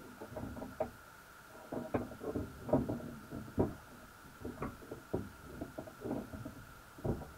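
Irregular knocks and clicks heard underwater through a submerged camera sitting in a crab pot, about a dozen in uneven succession, the loudest a little under three seconds in and again between three and four seconds in, over a steady faint high-pitched hum.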